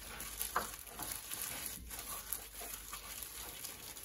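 Faint crinkling of a plastic food-prep glove and soft squishing as a gloved hand rubs garlic butter into the skin of a raw spatchcocked chicken.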